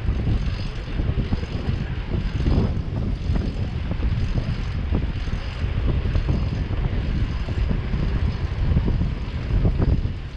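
Wind buffeting the microphone of a moving bicycle rider, with a steady low rumble of street traffic underneath.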